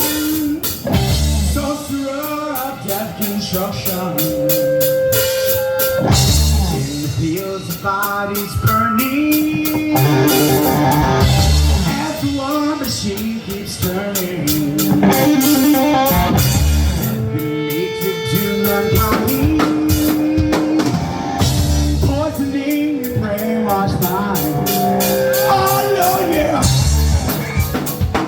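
Live band playing a rock number, with drum kit and electric guitar, and perhaps vocals.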